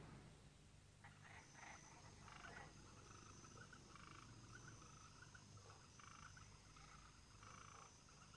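Faint night ambience of frogs croaking in short repeated calls, with a high insect trill coming and going.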